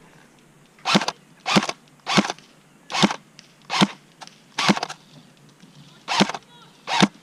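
Airsoft rifle firing eight single shots, each a sharp, loud snap, spaced unevenly about half a second to a second and a half apart.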